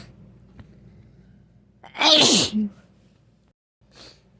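A person with a head cold sneezing once, loudly, about two seconds in, the voiced part of the sneeze falling in pitch. A short, fainter breath follows near the end.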